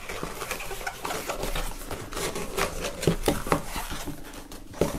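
Paper and cardboard rustling and scraping as hands work a folded paper poster out of a tightly packed cardboard box, with scattered small clicks and taps.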